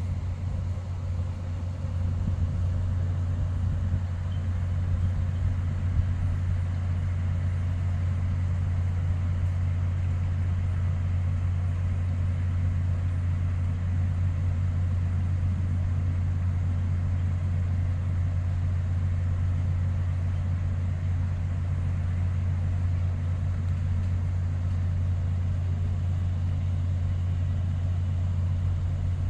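Steady low machinery drone from a docked cruise ship running while moored, unchanging throughout.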